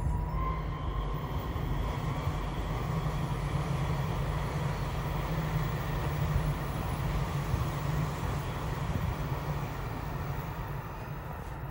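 E5 series Shinkansen bullet train passing along the elevated line: a steady rumble of wheels on rail and rushing air that eases off near the end as the train moves away.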